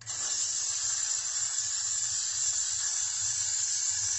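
Aerosol can of got2b Glued hair spray spraying onto hair in one continuous hiss, starting suddenly.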